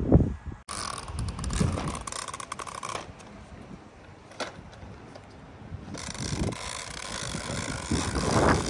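Plastic toy lawn mower pushed along by a small child, its wheels and mechanism clicking and rattling as it rolls, with a few low knocks.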